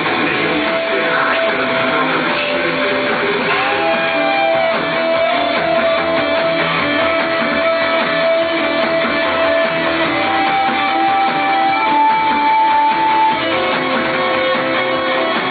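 Live rock band playing an instrumental passage led by an electric guitar solo of long held notes, one bent up and back down about four seconds in, the pitch stepping higher around ten and twelve seconds in and dropping near the end.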